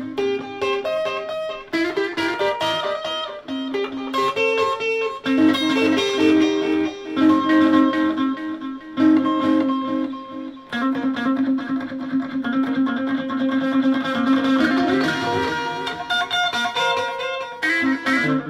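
Electric guitar played as a melody of single notes that ring on, changing pitch every fraction of a second to a second, with a short break about ten and a half seconds in.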